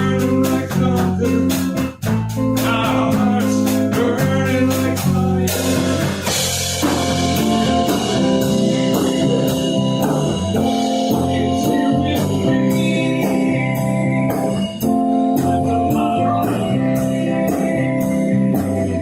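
A rock band playing a song: guitar over bass and a drum kit keeping a steady beat, with a cymbal crash about six seconds in.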